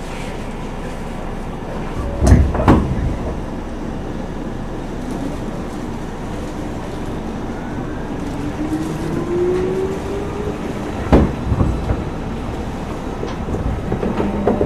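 Odakyu 9000 series electric train running on the line: a steady rumble of wheels on rail, with two pairs of thumps as the wheels cross rail joints, about two seconds in and again near eleven seconds. In the middle, the traction motor whine rises slowly in pitch for several seconds as the train gains speed.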